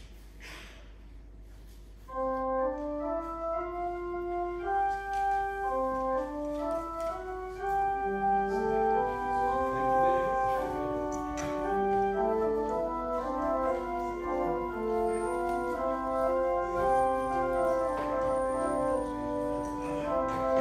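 Church organ music starting about two seconds in after a quiet pause: held chords with a moving melody line on top, typical of a closing voluntary at the end of a service.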